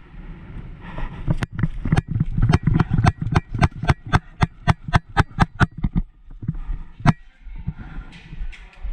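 Airsoft gun firing a fast, even string of sharp shots, about five a second for three seconds, with a few single shots before and after.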